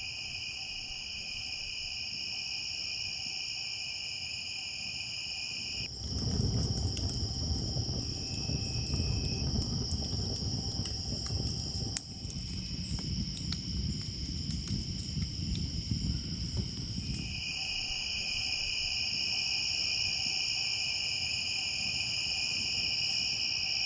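Crickets chirring steadily at night, a chorus of several high-pitched layers. From about six seconds in to about seventeen a low noise runs underneath, with one sharp crack about twelve seconds in.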